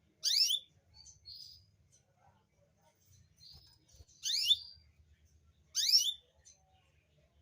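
Canary calling: three loud, quick call notes, each sweeping sharply in pitch, one near the start and two more about four and six seconds in, with softer short chirps between them. A faint low hum runs underneath.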